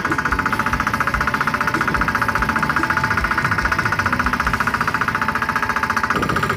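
Fishing boat's engine running steadily under way, with a fast, even knocking pulse.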